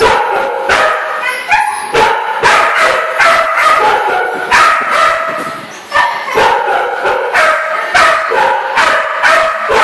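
A dog whining and yipping in a small tiled room: high cries, one after another with only short breaks.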